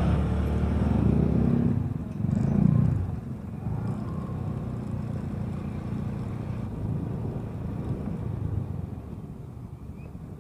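Honda scooter's single-cylinder engine running at low riding speed, surging twice in the first three seconds as it pulls away, then running steadily and easing off near the end.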